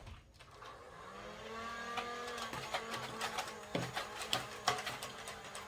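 Electric motor of a motorized Nerf blaster whirring, coming up to a steady hum about a second in, with several sharp clicks and knocks through it.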